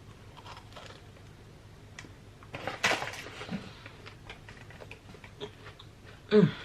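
A person biting into and chewing a piece of millionaire's shortbread, with small clicks and one louder crunchy bite about three seconds in, and a brief voiced sound near the end.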